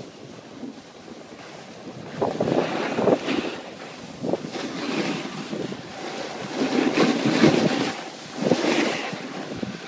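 Wind buffeting the microphone and skis scraping over snow as the filmer skis along, a noise that swells louder several times.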